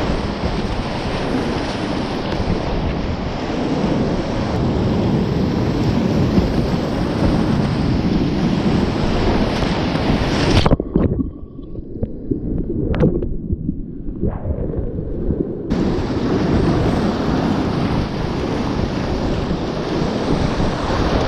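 Whitewater rapid rushing and splashing around a kayak, with water and wind buffeting the microphone. About ten seconds in, the sound goes muffled for some five seconds, with a few sharp knocks, as the camera is dunked under the water, then the full rush comes back.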